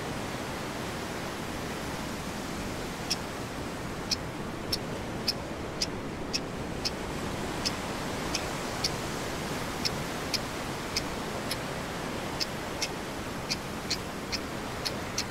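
Sharp metallic strikes of a fire-starting tool struck over tinder, about twenty short clicks at roughly two a second, starting about three seconds in, over a steady rushing noise of surf.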